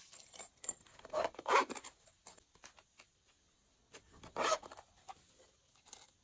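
Hands working slime and makeup, making two short rasping scrapes, one about a second in and one just past four seconds, with light taps and clicks between them.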